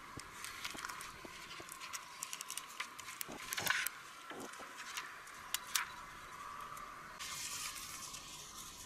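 Quiet handling of paper and adhesive tape while a poster is taped to a pole: scattered light clicks and crinkles, a louder rasping burst about three and a half seconds in, and a steady hiss near the end as tape is pulled and pressed on.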